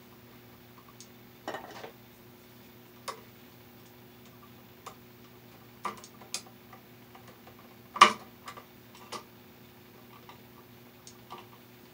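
Scattered light clicks and taps of a ground wire and hand tools being worked onto an electrical outlet, with one louder click about 8 seconds in, over a steady low hum.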